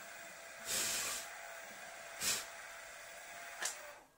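Milling machine spindle running with a steady hum while drilling a tapping hole, broken by two short noisy bursts and a sharp click; the motor cuts off near the end.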